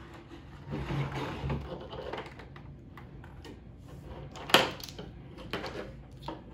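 A plastic light-up drawing board being handled and shifted on a tabletop: scattered knocks, clicks and scrapes of its plastic frame, with one sharp loud knock about four and a half seconds in.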